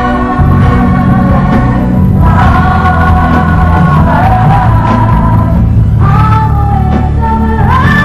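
A female pop singer holding long high notes in a ballad, sliding down between them and rising to a higher held note near the end, over a full band accompaniment.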